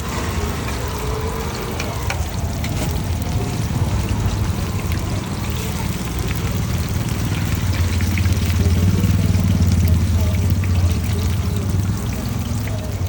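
Batter cakes frying in hot oil, a steady fizzing sizzle, over a low rumble that swells for a few seconds past the middle.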